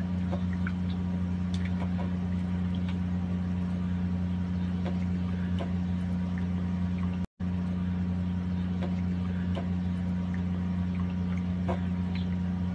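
Faint water sounds and light taps of raw chicken pieces being rinsed by hand in a bowl with bottled mineral water, over a steady low hum. The sound drops out for an instant about seven seconds in.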